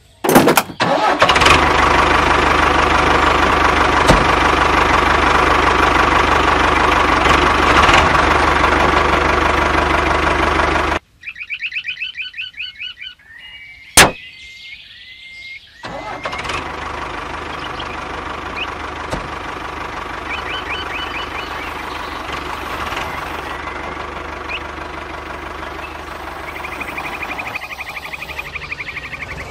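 Electronic engine sound effect of a toy tractor: a start-up followed by a loud, steady run that stops suddenly about eleven seconds in. A short, rapid high warbling and one sharp plastic click come next, then a quieter engine sound runs on steadily.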